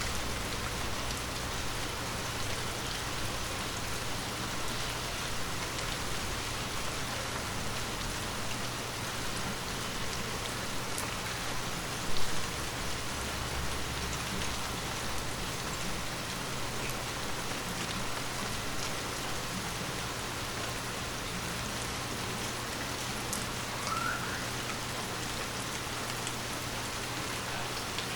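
Light rain falling steadily, a constant even hiss of drops on surfaces. A single short, louder knock about twelve seconds in, and a faint brief rising chirp near the end.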